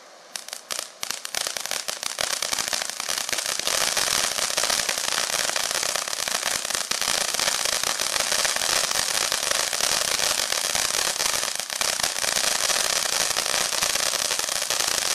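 Snow Cone Jr. consumer firework fountains crackling. Scattered sharp pops begin just after the start and build within a few seconds into a dense, continuous crackle that holds steady.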